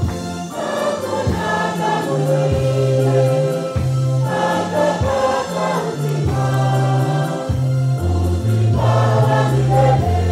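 Church choir singing a gospel hymn in parts over a bass line of held low notes that changes every second or so.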